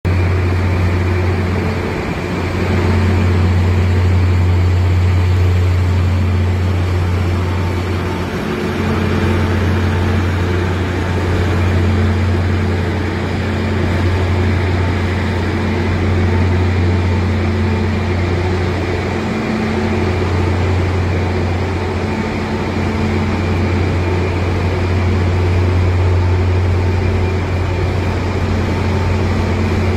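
Electric drives of a 100-ton double-girder overhead crane running as the bridge travels: a steady low hum with a higher tone that comes and goes, dipping briefly about two, eight and nineteen seconds in.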